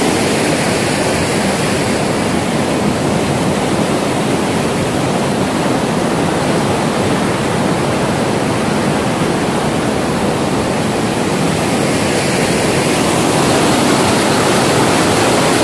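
Mountain stream running fast over rocky rapids: a loud, steady rush of water from a full, high flow, swelling slightly near the end.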